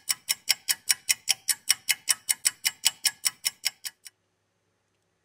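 Clock-ticking sound effect, about five quick ticks a second, stopping about four seconds in, laid under an on-screen stopwatch to mark a three-minute wait for adhesive remover to work.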